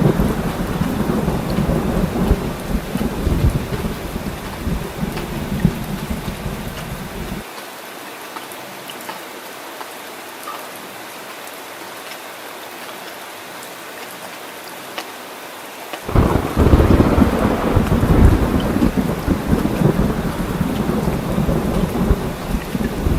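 Heavy rain falling steadily, with thunder rumbling over it. The thunder stops abruptly after about seven seconds, leaving rain alone, then comes back just as abruptly about sixteen seconds in.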